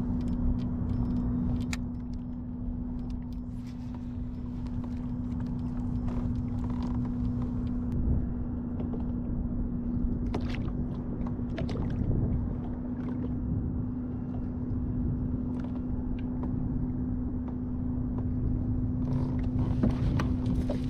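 A motor hums steadily at one unchanging pitch over a low rumble, with scattered small clicks and knocks on top.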